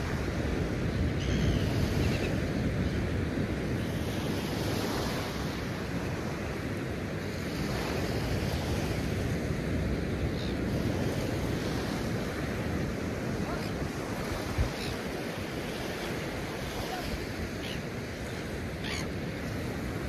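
Ocean surf breaking and washing up a sandy beach, a steady rushing noise, with wind buffeting the microphone. A single short knock about two-thirds of the way through.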